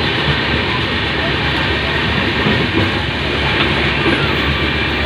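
Passenger train running at speed, heard from the open doorway of its coach: a loud, steady noise of the wheels running on the rails.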